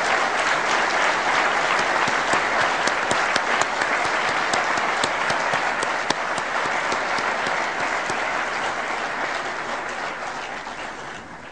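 Audience applauding: a sustained round of clapping that dies away near the end.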